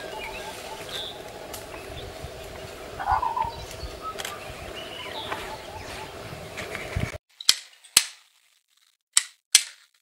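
Outdoor ambience with a few short bird calls over a steady low drone. About seven seconds in it cuts to a quiet background and four sharp knocks in two pairs: a black woodpecker striking a tree trunk with its bill.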